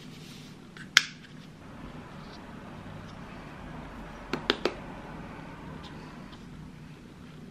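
Seasoning being added by hand: a brief hiss of salt pouring from a plastic salt canister, then a sharp plastic click about a second in, typical of the canister's spout snapping shut. A little past halfway come three quick clicks as a small spice jar is shaken over a stainless steel bowl.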